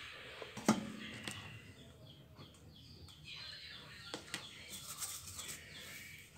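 A stainless steel bowl set down on a wooden board with a sharp clunk and brief ring about a second in. Lighter knocks and handling noise follow as dough is placed into the bowl.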